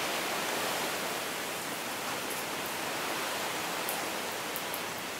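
Steady rush of running water poured over a steel letterbox to simulate rain, draining out and spattering onto concrete.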